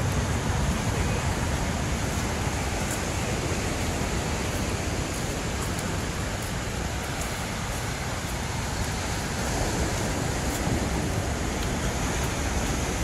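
Ocean surf washing onto the beach: a steady rush of breaking waves.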